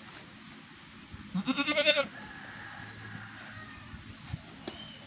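A goat bleats once, about a second and a half in: a short, wavering call under a second long.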